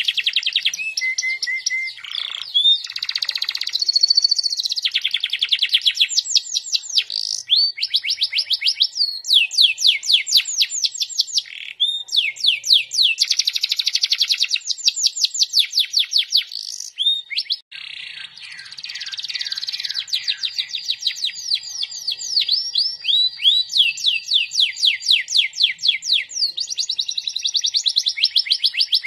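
Domestic canary singing a long, near-continuous song of rapid trills: runs of quick repeated downward-sweeping notes that change pattern every second or two, with one short break a little past halfway.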